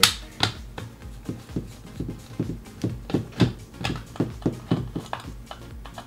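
A screwdriver turning out the machine screws of a plastic multimeter's back cover: a steady series of short clicks, about three a second.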